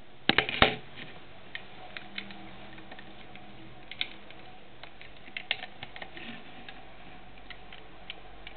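Plastic Lego bricks clicking as they are pressed into place and handled: a quick cluster of sharp clicks just after the start, then scattered lighter clicks.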